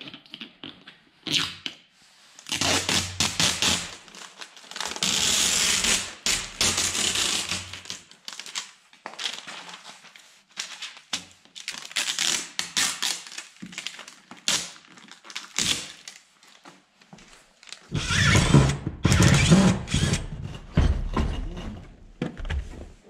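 Tint film crackling and tearing as it is peeled off a car's door window glass, in repeated bursts with short pauses. Near the end comes a louder, deeper stretch of noise.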